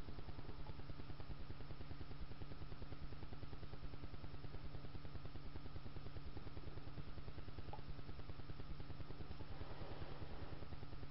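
Steady background hum with a fast, even pulsing, and a couple of faint clicks near the end.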